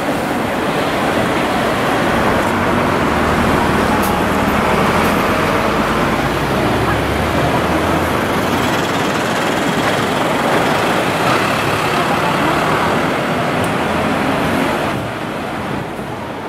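Road traffic at a city intersection: a steady wash of car and engine noise as vehicles drive through, with a deeper engine rumble of a heavier vehicle passing from about three to eight seconds in. The noise eases a little near the end.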